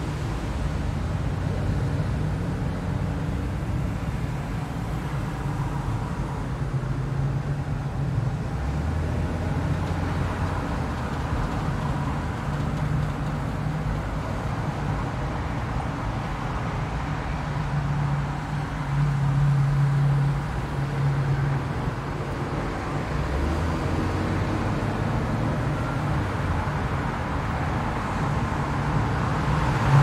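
A car driving: steady road noise with a low engine hum that shifts in pitch now and then.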